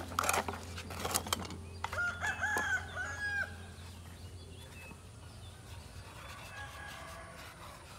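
A few sharp clicks from debris being handled, then about two seconds in a bird calls: a quick run of short rising-and-falling notes.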